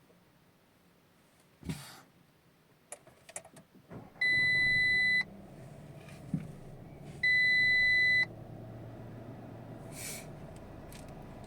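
Two long, steady warning beeps, each about a second long and about three seconds apart, from a 2021 Audi Q3's instrument cluster as fault warnings come up with the ignition on and the engine failing to start, caused by a dead 12 V battery. Before them come a thump and a few clicks; from about four seconds in a steady low hum runs underneath.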